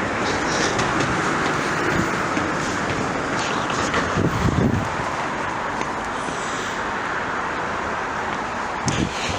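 Steady road traffic noise, a continuous hiss of passing vehicles, with a couple of brief low thumps.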